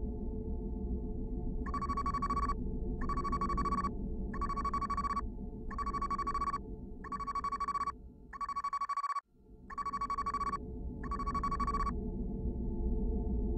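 Electronic ringing tone: eight evenly spaced beeps, each a little under a second long and about a second and a half apart, stopping about two seconds before the end, over a steady low hum.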